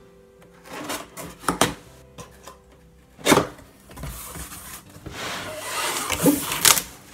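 Cardboard box and packaging being handled and opened: a few knocks, a sharp thump about three seconds in, then rustling and scraping of cardboard and packing that grows louder near the end, with two sharp snaps.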